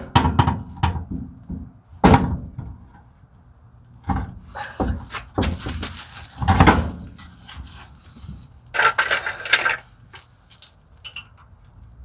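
Wheel lug nuts being tightened with hand tools: irregular metal knocks and clicks, with several short rasping bursts.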